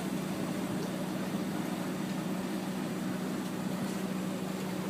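Boat engine running steadily while the boat is underway: a constant hum over a steady rushing noise.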